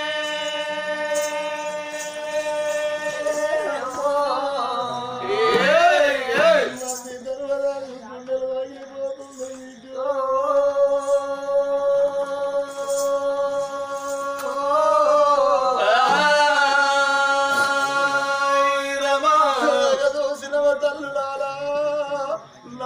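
Oggu Katha folk singing: voices hold long, drawn-out notes, breaking twice into wavering melodic turns before settling on a steady held note again.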